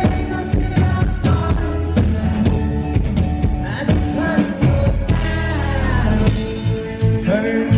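Live folk-rock band performing: a male lead vocalist sings into a microphone over fiddle, guitar and drums, with a steady beat.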